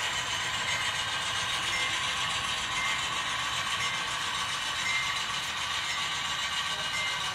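HO scale model freight train rolling slowly along the track, its small metal wheels running steadily on the rails, with a faint brief high note about once a second.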